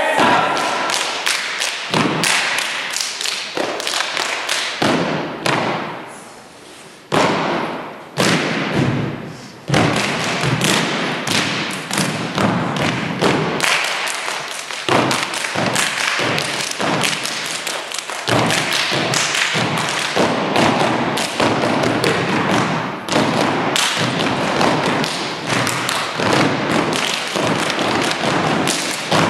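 Step dance: a team's rhythmic stomps, claps and body slaps in quick, tight patterns, with a couple of brief breaks about six and nine seconds in.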